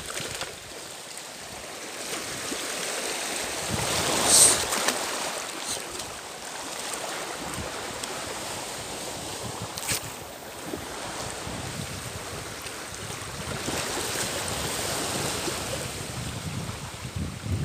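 Small sea waves washing over a stony shore, a steady rush that swells and eases, with wind buffeting the microphone. There is a louder rush about four seconds in and a short click near the middle.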